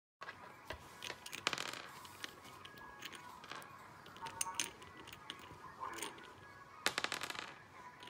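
Light clicks and clinks of miniature bottles as a cockatiel's beak works them out of a small plastic crate and knocks them over onto a wooden table, with two quick rattling runs of clicks, about a second and a half in and near the end.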